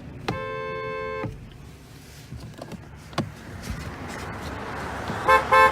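Kia Sedona's car horn sounding one steady honk about a second long, then a click. Near the end comes a quick run of about five short toots.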